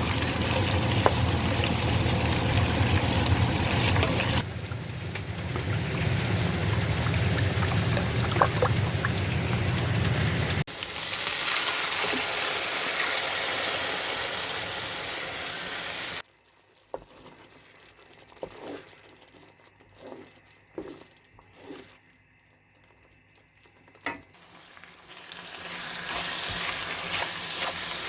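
Cooking sounds from a pan on the stove: a steady frying sizzle in several edited stretches, with a quieter spell in the middle broken by a few light clicks and knocks, before the sizzle rises again near the end.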